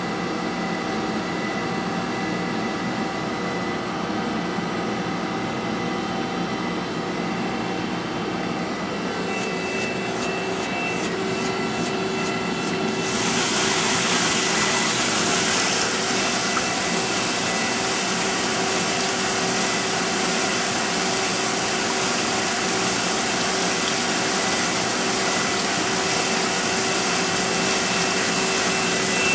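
Wasino Meister V3 CNC surface grinder running idle, a steady machine hum with several held tones. After a few seconds of fine rapid ticking, the coolant switches on about halfway through and adds a loud, steady rushing hiss of coolant flow over the hum.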